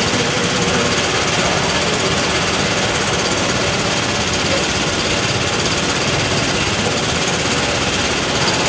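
A small engine running steadily close by, with a fast, even pulse.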